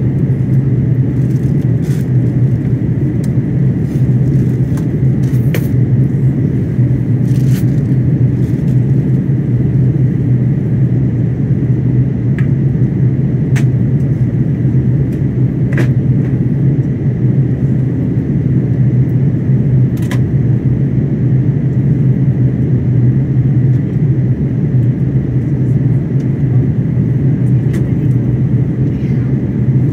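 Steady low cabin drone of an Airbus A330-900neo airliner on descent, heard from a window seat: airflow and its Rolls-Royce Trent 7000 engines. A few faint clicks and rattles are scattered through it.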